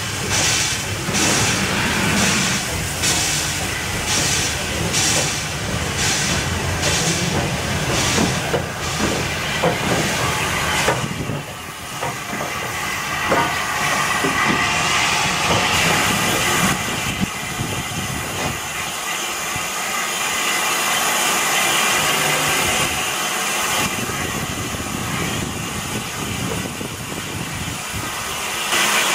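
Steam locomotive exhaust: the E4 0-6-2T tank engine's chuffs come in an even rhythm of about one and a half a second, mixed with steam hiss. About eleven seconds in this gives way to a steady hiss of steam escaping around the cylinders of a standing SR U Class 2-6-0.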